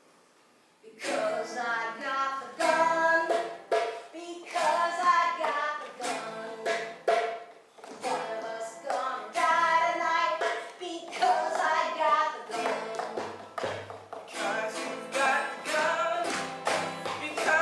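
A song starts about a second in: a voice singing over a strummed baritone ukulele.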